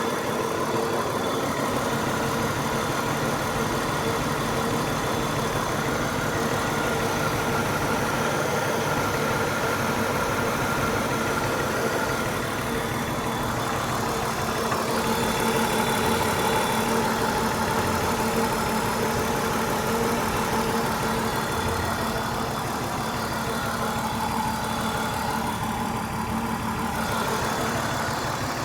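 BMW 328i's six-cylinder engine idling steadily with a misfire, which the owner takes for one cylinder dead, the engine running on five cylinders.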